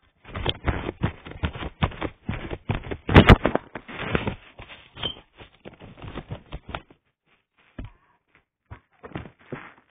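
Handling noise: rapid, irregular rustling and clicking as paper and the camera are handled, with one sharp crack about three seconds in, then thinning to a few scattered clicks in the last few seconds.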